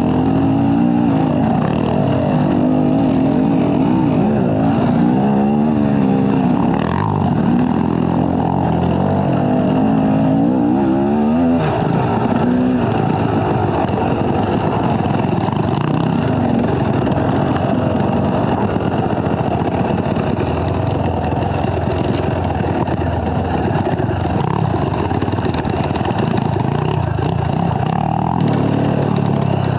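Off-road dirt bike engine being ridden, revving up and down with the pitch rising and falling several times in the first dozen seconds, then running more evenly.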